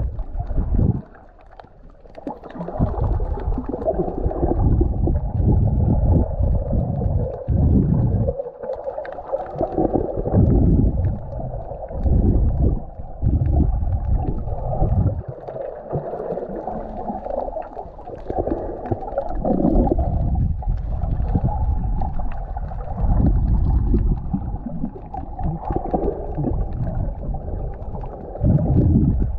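Muffled underwater water noise picked up by a camera held underwater: water rushing and gurgling around it in uneven low surges as the swimmer moves, with a brief lull about a second in.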